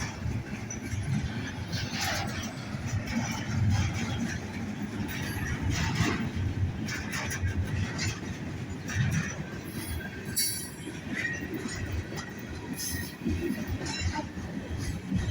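Union Pacific freight train's cars on the rails: a steady low rumble with irregular clanks and knocks, and a brief high wheel squeal about ten seconds in.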